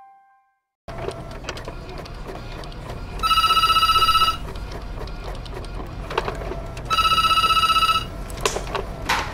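Desk telephone ringing twice, each a trilling ring about a second long with a gap of about two and a half seconds between, over steady office room noise. A few short clicks and paper rustles come near the end.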